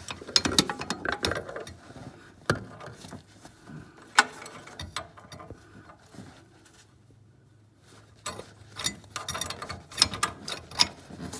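Metal hand tools clinking and a socket ratchet clicking in short runs as a ratchet and extension are worked onto an oxygen-sensor socket in a tight space, with a brief quiet spell a little past the middle and a quicker run of ratchet clicks near the end.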